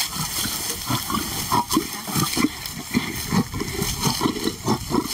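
Lion growling in a run of short, rough, low pulses while feeding: a warning to a lioness coming near the meat.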